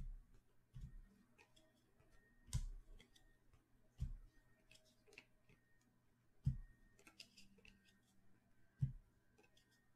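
A few soft knocks and small clicks, irregularly spaced a second or two apart, in a quiet small room.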